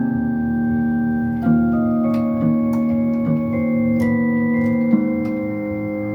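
Yamaha PSR electronic keyboard playing slow, held organ chords of a hymn in three voices on a pipe-organ registration, the notes changing every second or so.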